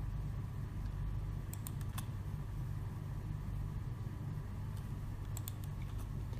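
A few sharp computer mouse clicks, a small cluster about one and a half to two seconds in and another near the end, over a steady low hum.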